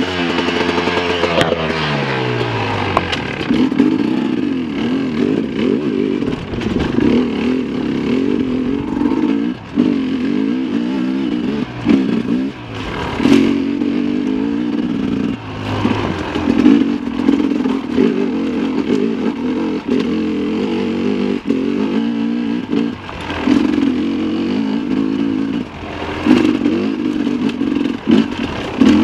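Sherco 300 SE Factory two-stroke enduro motorcycle engine being ridden off-road. The revs fall away about a second in, then rise and fall with the throttle throughout. A few sharp knocks and clatters come from the bike over the rocky ground.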